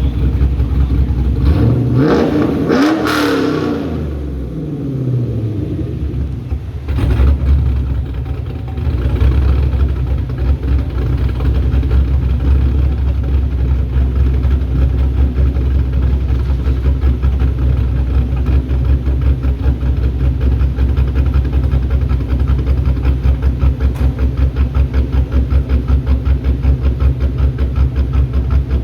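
Modified V8 of a 2002 Pontiac Firebird Formula, built with long-tube headers, a chambered exhaust and an upgraded camshaft. It is revved once about two seconds in, rising and falling back, then blipped briefly around seven seconds. After that it idles with a steady rhythmic pulse, the lope of the big camshaft.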